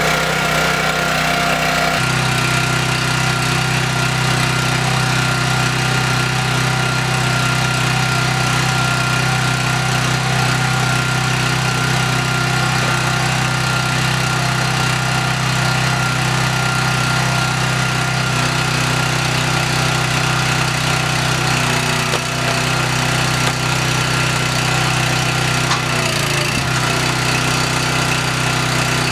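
A log splitter's small gasoline engine, just pull-started, runs steadily. Its note strengthens about two seconds in, and it shifts slightly twice late on, as the hydraulic wedge is brought down onto a log.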